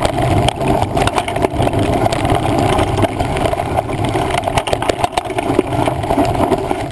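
Mountain bike riding over a rough trail, heard through a handlebar-mounted GoPro: a steady rumble of tyres and wind on the camera, with frequent sharp rattling knocks as the bike jolts.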